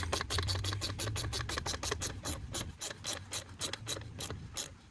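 Hand socket ratchet clicking in quick repeated strokes as clamps are tightened.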